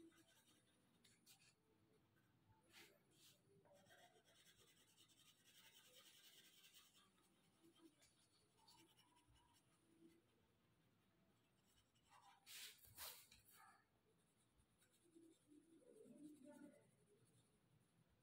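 Faint scratching of a coloured pencil shading on paper, with a couple of brief louder scuffs about two-thirds of the way through.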